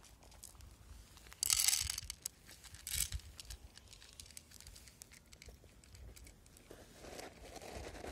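Cats crunching dry kibble from plates: a scatter of small crunches and clicks. A short, loud rustle comes about a second and a half in, and a briefer one about three seconds in.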